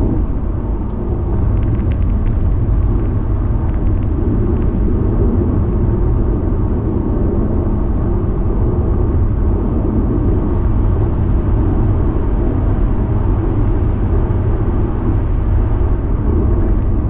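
Car driving on a freeway, heard from inside the cabin: a steady low rumble of tyre and road noise with the engine underneath.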